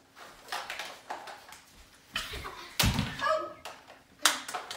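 A child dropping onto a wooden floor: a few scattered knocks and bumps, the loudest a heavy thud about three seconds in, followed by a brief child's vocal sound.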